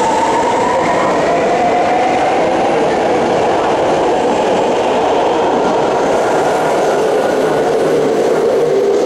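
BART train running past the platform as it pulls away: a steady rumble of wheels on rail with a whine that slowly falls in pitch.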